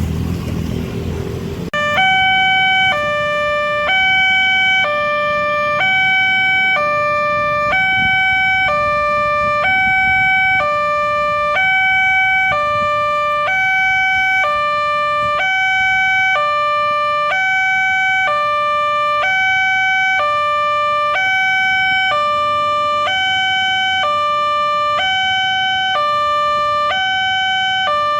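Railway level-crossing warning siren starting about two seconds in: an electronic two-tone signal swapping between a higher and a lower pitch about once a second, steady and loud, warning that a train is approaching and the gate is closing. Road traffic runs faintly underneath.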